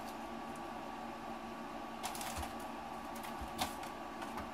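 Handling noise at a workbench: a few light clicks and rustles of plastic RC parts and packaging, the sharpest click about three and a half seconds in, over a steady background hum.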